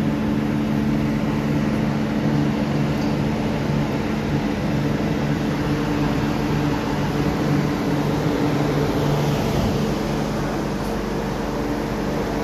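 MTR Q-Train metro car standing at a platform with its doors open: the steady hum of its onboard equipment and ventilation, with several low steady tones under an even rushing noise.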